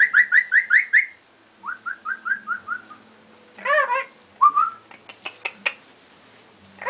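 A pet parrot whistling: two quick runs of about six short rising whistle notes, the first run higher than the second. Then a short call, one more rising whistle, and a few clicks.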